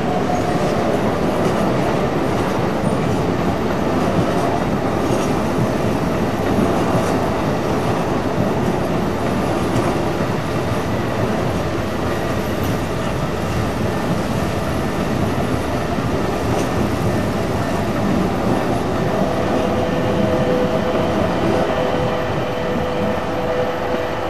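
Keikyu electric train running past close by, a steady loud wheel-on-rail rumble with clickety-clack from the wheels over the rail joints. A steady whine comes in for the last few seconds.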